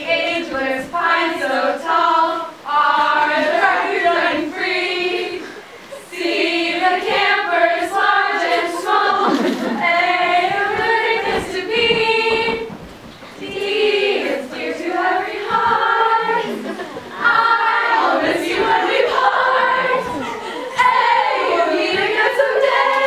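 A group of girls singing together in unison, in sung phrases with short breaks between them.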